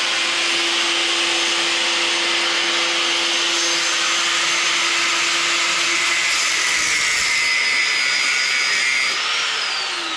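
Angle grinder grinding metal: a steady, loud grinding hiss over a high motor whine. Near the end it is let off and winds down with a falling whine.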